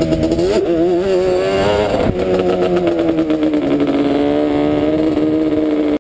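ATV engine at high revs, its pitch wavering as the throttle is worked over a dirt jump, with a sharp thump about two seconds in; it then runs on at steady high revs, the pitch slowly dropping.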